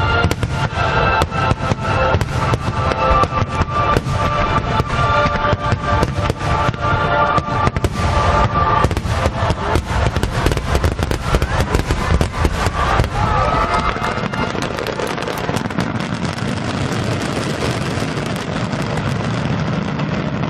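Fireworks display: rapid, overlapping bangs and crackles of many shells bursting together, with a deep rumble, thinning out about two-thirds of the way in.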